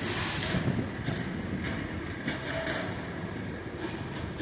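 Electric suburban local train running along the track, heard from its open doorway: a steady rumble and rush of air, a stronger gust near the start, and irregular wheel clicks over rail joints and points.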